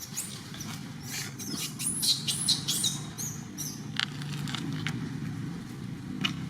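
Baby monkey squealing: a quick series of short, high-pitched rise-and-fall squeaks about two seconds in, over a steady low rumble, with a couple of sharp clicks later on.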